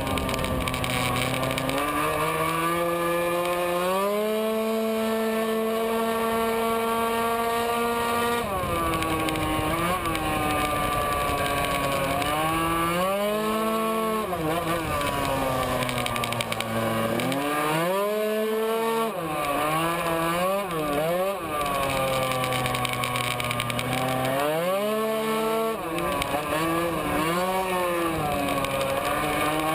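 Tuned Yamaha racing scooter's two-stroke engine at full throttle on a lap: the note climbs and holds high, drops sharply when the throttle is shut for bends, then climbs again, over and over.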